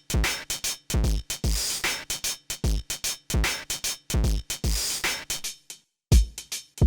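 Electronic drum-machine beat played through the Bass-Face multi-effect plugin: deep kicks that drop in pitch, with crisp hi-hat and snare hits between them. The beat stops for about half a second near the end, then starts again.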